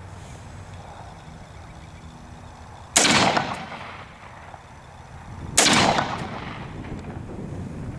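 Two rifle shots from a Springfield Saint AR-15 in 5.56, about two and a half seconds apart, each trailing off in a short echo.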